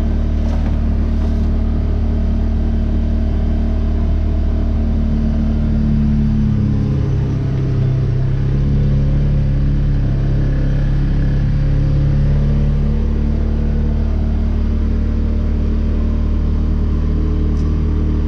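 Engine of a vehicle in low gear, pulling a makeshift field drag and running steadily under load. Its note drops and shifts for several seconds around the middle, then settles back to the earlier pitch.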